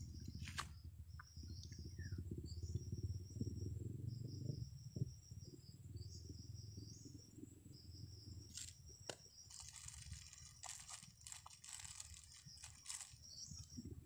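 Faint, repeated high trills of crickets, each about a second long with short gaps. In the second half, a clear plastic humidity bag over a tamarind cutting crinkles and rustles as it is handled.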